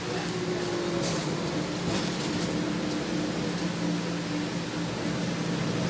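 Inside a 2000 Nova Bus LFS city bus under way: its Detroit Diesel Series 40 engine running steadily under road noise, heard from the passenger cabin.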